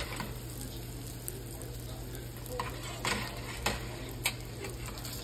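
French toast sticks frying in a pan, a steady sizzle, with a few sharp taps of a utensil against the pan in the second half.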